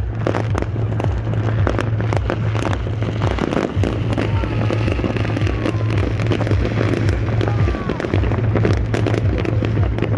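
A fireworks display bursting overhead, with many irregular bangs and crackles close together and a steady low hum underneath.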